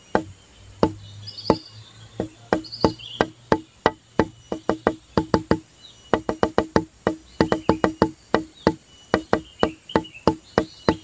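Background music: a quick wood-block percussion rhythm of sharp, same-pitched clicks, with a few high chirping notes over it.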